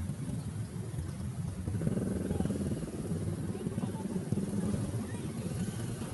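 Motorcycle engines idling, a steady low rumble.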